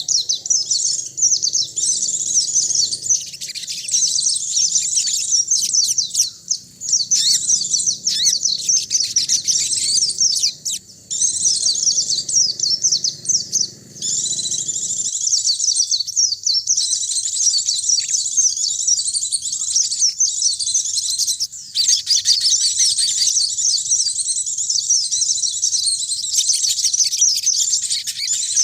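Pleci (white-eye) and sogon birds singing: a dense, fast, high-pitched twittering that hardly pauses, with a faint low hum underneath for the first half.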